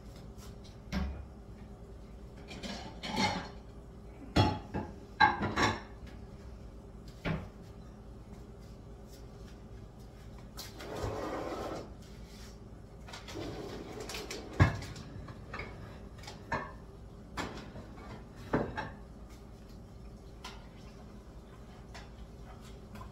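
Scattered kitchen clatter as pasta is plated: knocks and clinks of dishes and utensils against the counter and a pot, with a rustling stretch about eleven seconds in and the sharpest knock shortly after.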